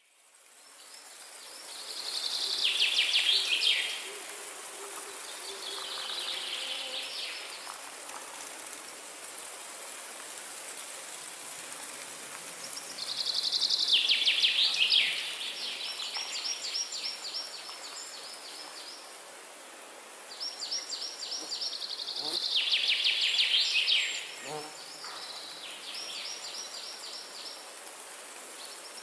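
Steady hiss of light rain with a songbird singing loud, rapid trills again and again, each phrase sliding down in pitch at its end. The sound fades in over the first couple of seconds.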